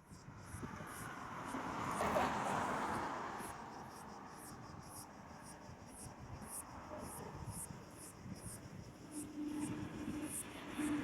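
Outdoor airport ambience: a soft rushing swell of distant aircraft noise about two seconds in, under insects chirping about twice a second. A steady low hum sets in near the end.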